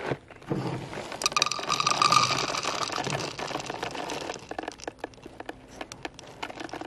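Dry round cereal pieces being poured into a bowl: a dense rattling patter that starts about half a second in, with the bowl ringing faintly under it. It is busiest in the first few seconds, then thins out to scattered clicks.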